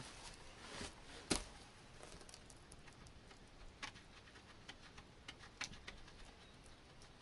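Faint, scattered small clicks and ticks, with one sharper click about a second in, from a stone flake being handled and set against leather to cut a button slot.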